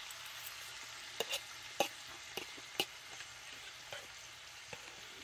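Beef and cabbage stir fry sizzling steadily in a cast-iron skillet. A handful of sharp clinks of a utensil against a bowl or pan come at irregular moments from about a second in.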